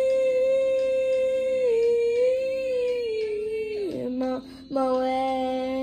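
A child singing long held notes in head voice for a vocal exercise. The first note sags a little in pitch and breaks off about four seconds in, then a new held note starts, with a lower steady tone underneath.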